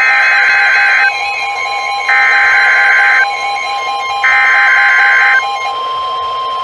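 Three Emergency Alert System SAME header bursts on NOAA Weather Radio: harsh, warbling digital data screeches about a second long each, a second apart, the coded opening of a severe thunderstorm warning. A fainter steady tone sounds underneath.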